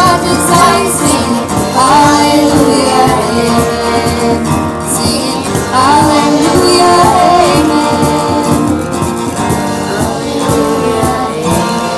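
Worship band music: held, sliding sung notes over guitar and drums, starting to fade out near the end as the song closes.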